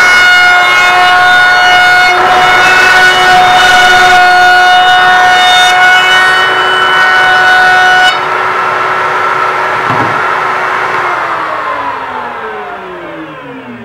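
Table-mounted router with a round-over bit running at full speed while it rounds over the edges of a wooden frame: a loud, steady high whine with hissing cutting noise. The cutting noise stops abruptly about eight seconds in, and from about eleven seconds the motor's whine falls steadily in pitch as it spins down.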